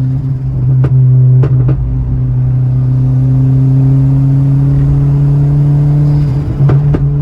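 Turbocharged 1.0 VW Gol G6 engine pulling under load, heard from inside the cabin: a steady loud drone that rises slowly in pitch. A few sharp cracks come about a second in and again near the end.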